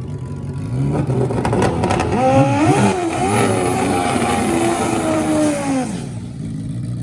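Racing engine revving, its pitch rising and falling, coming in about a second in and dying away near six seconds.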